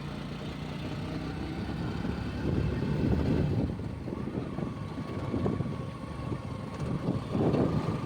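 Motorcycle engine running while riding, with a steady low rumble. A thin, high, steady whine joins it about halfway through.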